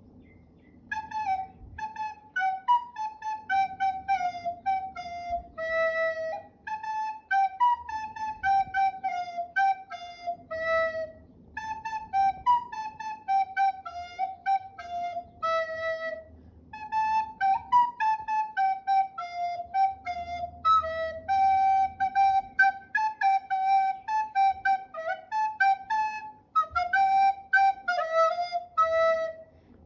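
Solo recorder playing an Arabic song melody one note at a time, in phrases that mostly step downward and break off briefly every few seconds.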